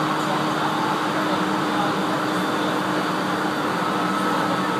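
Aoimori Railway 701-series electric train running steadily along the line, heard from inside the carriage: an even rumble of wheels on rail with a faint steady hum.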